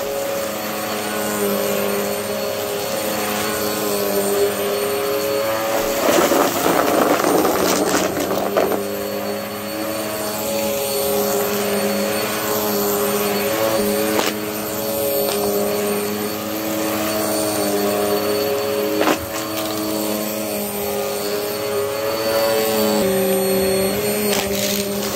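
Upright vacuum cleaner running over carpet: a steady motor hum whose pitch shifts slightly. A louder rushing stretch comes about six to eight seconds in, with a few sharp clicks.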